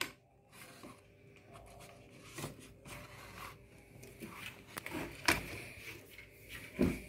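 Handling noise of a small plastic mini cassette player being picked up and turned over in the hand: light rubbing and scraping of the casing with a few soft clicks, the sharpest about five seconds in.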